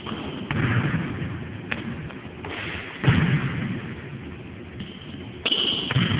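A basketball thudding on a court three times, the loudest about three seconds in, with a sharp click in between and a high sneaker squeak near the end.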